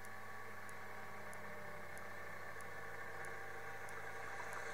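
VéloSoleX moped's small two-stroke engine buzzing steadily as it approaches, getting slightly louder toward the end.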